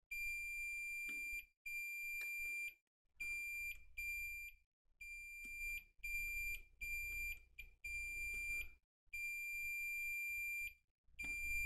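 Digital multimeter's continuity beeper in diode-test mode sounding in about ten separate steady high-pitched beeps, each from half a second to a second and a half long, as the probes touch one capacitor after another. The beeps mark a near-zero reading across the capacitors: they are shorted.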